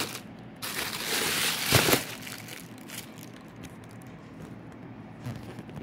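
Clear plastic bag crinkling and rustling as a hand grips and handles a pair of football boots wrapped in it. It is loudest in the first two seconds, with a knock near the two-second mark, then settles into quieter rustling.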